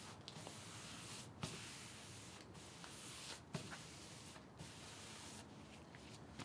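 Cloth rag wiping excess wood stain off a veneered table leaf: a faint rubbing hiss in repeated strokes, breaking off briefly between them, with a few light taps.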